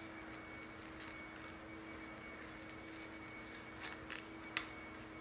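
A steady low hum with a few light clicks and crinkles about four seconds in.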